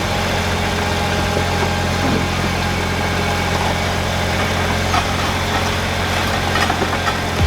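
Case skid steer's diesel engine idling steadily.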